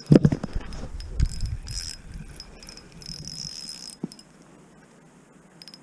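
Spinning reel whirring in short spells while a fish is on the line, after knocks and rumble from gloved hands handling the rod.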